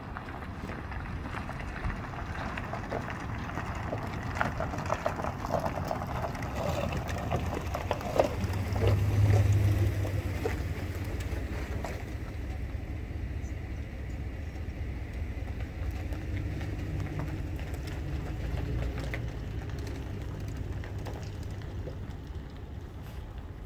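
Low, steady rumble of the approaching coal train's diesel-electric locomotives, loudest about nine seconds in, with wind noise and crackle on the microphone.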